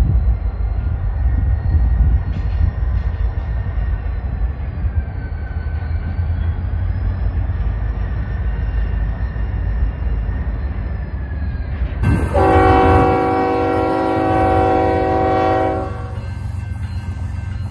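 Diesel freight locomotives rumbling low as they move slowly along the track. About twelve seconds in, an approaching locomotive's air horn sounds one long chord of several notes for about three and a half seconds, over the engine rumble.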